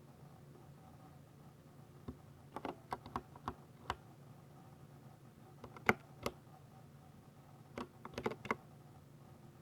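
Ducky 60% mechanical keyboard with silver switches being typed on: short bursts of sharp key clicks with pauses of a second or more between the bursts.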